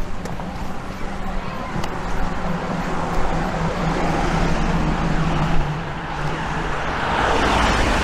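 Road traffic: a car driving past on the adjacent road, a low engine hum followed by tyre noise that grows to its loudest near the end.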